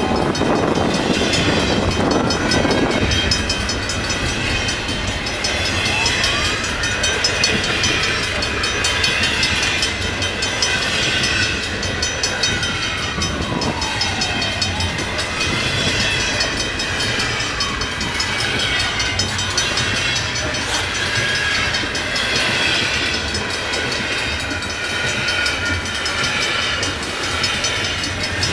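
Long intermodal stack train's cars rolling past: a steady rumble of wheels on rail, with high-pitched squealing and ringing tones, some gliding slowly up and down.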